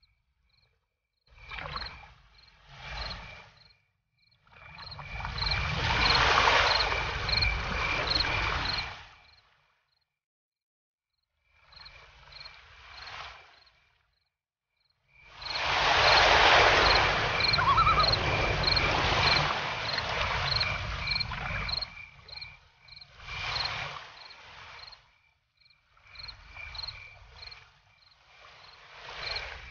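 Crickets chirping in a steady two-pitched rhythm, about two chirps a second, under loud swells of rushing noise with a low rumble. Everything drops out to silence a few times.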